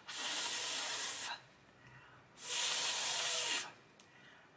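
A woman sounding a long, voiceless English F, 'fffff', by resting her top teeth on her bottom lip and breathing out. It is a steady hiss held for just over a second, twice, with a pause between.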